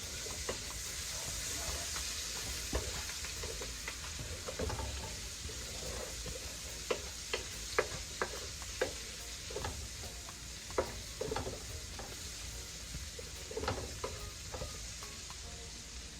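Garlic, onion and scotch bonnet pepper sizzling in oil in a Dutch pot, with a steady hiss. A spoon clicks and knocks against the pot now and then, most often in the middle of the stretch.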